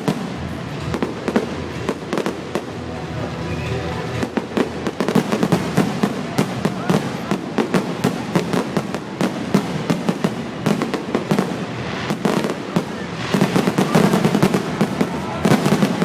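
Fireworks display: a dense, continuous run of bangs and crackles, busiest near the end.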